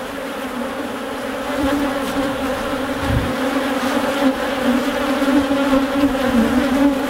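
Honey bees buzzing in numbers around opened hives, a steady, loud hum with no break.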